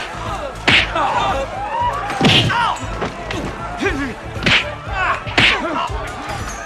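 Dubbed 1970s kung fu film impact sound effects: four loud, crisp punch-and-slap hits spaced through a few seconds, with smaller hits between them.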